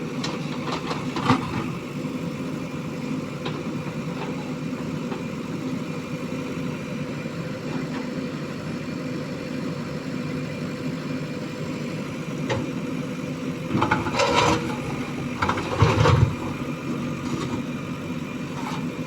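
Diesel engine of a JCB 3DX backhoe loader running steadily, with a knock about a second in and a cluster of louder knocks around fourteen to sixteen seconds in.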